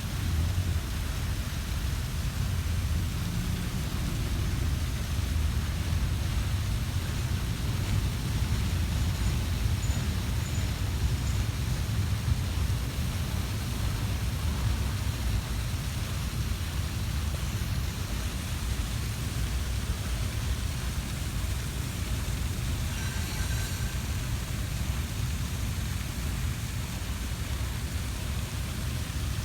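Slow-moving intermodal freight train rolling past: a steady low rumble with a hiss over it.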